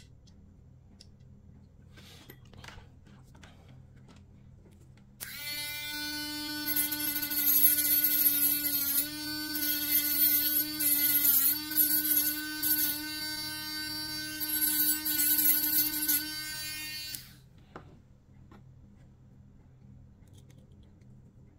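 Small handheld rotary tool with a thin cutting disc, switched on about five seconds in and off about seventeen seconds in: a steady high motor whine, with a hiss that swells and fades several times as the disc cuts into a blue plastic pen piece, the pitch dipping briefly under load.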